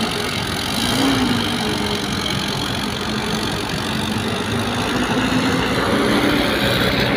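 Heavy diesel engines running steadily: a dump truck loaded with soil pulling away, with an excavator at work close by.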